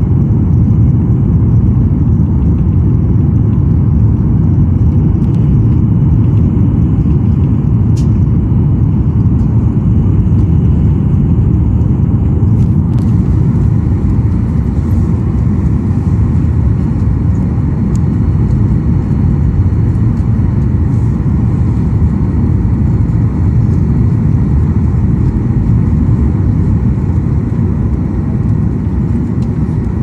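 Steady low rumble of jet engines and rushing air heard inside an airliner cabin on final approach, the aircraft descending with flaps out for landing.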